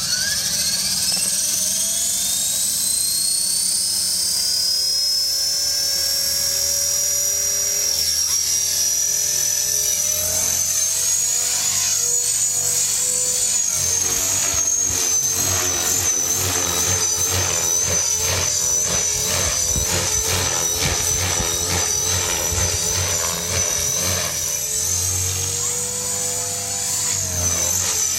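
Blade 450 3D electric RC helicopter spooling up with a whine that rises steeply over the first few seconds. Its motor and rotor then hold a steady high whine, with fast rhythmic blade chop and wavering pitch through the middle as it is flown hard, easing near the end.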